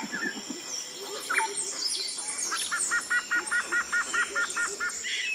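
Several birds singing and chirping. In the middle one bird gives a quick run of about ten repeated double notes, about four a second, over a faint steady high tone.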